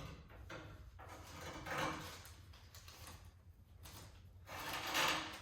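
Handling noises: scraping and rustling of objects being moved, with a louder swell about two seconds in and another near the end.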